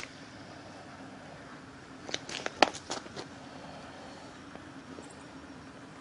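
A quick run of sharp crackling clicks about two seconds in, over a steady low background hum.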